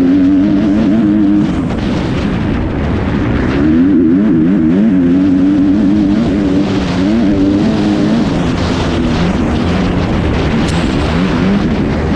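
Kawasaki off-road race bike's engine at racing speed, its pitch climbing and dropping again and again as the rider works the throttle through the gears. A constant rushing noise of wind and dirt runs underneath.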